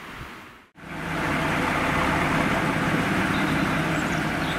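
Faint outdoor background, then, after a cut about a second in, two small diesel shunting locomotives coupled double-headed, their engines running with a steady drone and a constant low tone.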